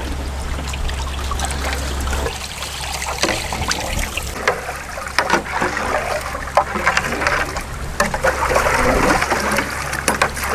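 Milk splashing and trickling as crushed chocolate biscuits are put into it, with many scattered sharp clicks and taps that grow busier from about four seconds in.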